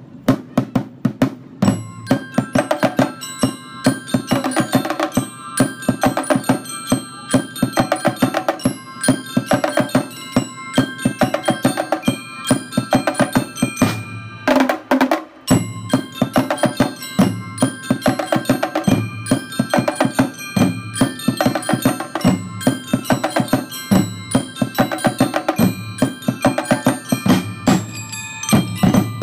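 Drum and lyre band playing: bell lyres (metal-bar glockenspiels) ring out a melody over snare drums, bass drums and tenor drums beating a steady rhythm. There is a short break about halfway through before the band comes back in.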